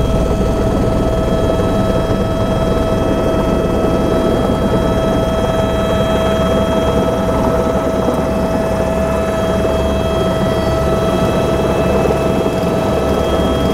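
Helicopter engine and rotor running steadily, heard from inside the cabin in flight: a constant high whine over a dense low rumble.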